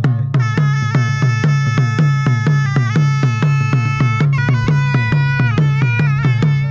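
Ladakhi folk dance music: daman barrel drums beaten with sticks in a steady rhythm of about four strokes a second, under a surna shawm playing a melody of long held notes that step up and down in pitch.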